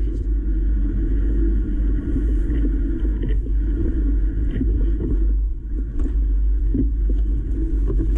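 Mountain bike riding over a rough heather singletrack, picked up through a handlebar-mounted GoPro: a steady, loud low rumble of frame vibration and tyre noise, with scattered knocks and rattles from the bumps.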